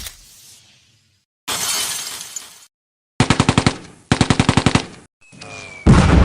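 A string of short stock sound effects, one after another with gaps between them: a sharp hit, a burst of crashing noise, two quick runs of rapid clicks like automatic fire, a brief pitched glide, then a loud crash that rings on near the end.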